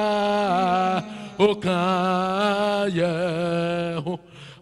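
A man singing a slow worship chant into a handheld microphone: long held notes with vibrato in three phrases, each followed by a short break, the voice dropping away shortly after four seconds.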